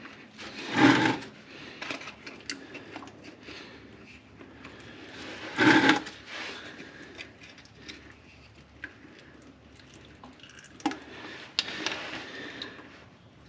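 Handling noises as the tractor's hydraulic suction screen is pulled out and handled: scattered small clicks and scrapes, with two louder brief bursts, one about a second in and one just before six seconds.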